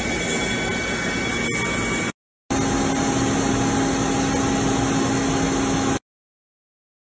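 CNC milling machine boring a steel workpiece with coolant flowing: a steady, noisy rush of cutting and coolant with faint steady tones. The sound breaks off abruptly about two seconds in, then the machine's steady running comes back with a low hum. It stops dead about six seconds in.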